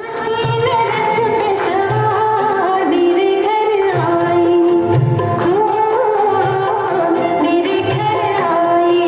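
Music: a song with a wavering sung melody over a low, steady drum beat.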